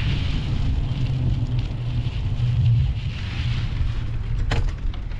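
Wind buffeting the microphone as a steady low rumble, with a fainter hiss behind it and a single sharp click about four and a half seconds in.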